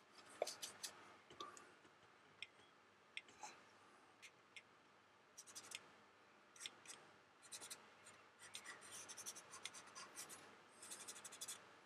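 Faint scratching and rubbing of fingertips working chalk pastel powder into the painted plastic wing of a scale model aircraft, with scattered light ticks that come more closely together near the end.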